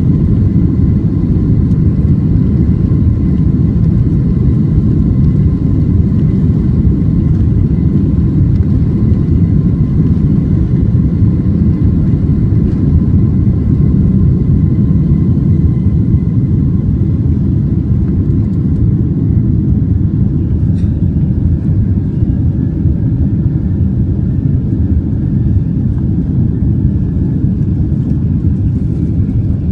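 Boeing 767 jet engines running at takeoff power: a loud, steady, deep rumble with a faint steady whine over it.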